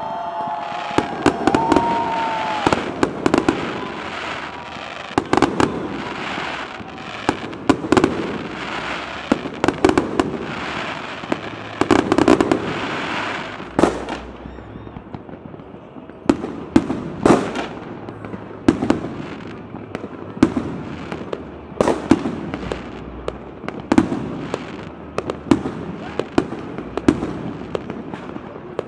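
Aerial fireworks display: shells bursting in a steady series, roughly one sharp bang with a low boom every second, over a crackling fizz of sparks. The crackle thins out about halfway through while the bangs go on.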